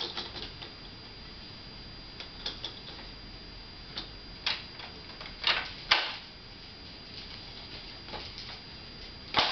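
Plastic clicks and clacks from the toys on a baby jumperoo's tray as they are turned and handled, coming a few at a time with the loudest pair about halfway through, over a faint steady hiss.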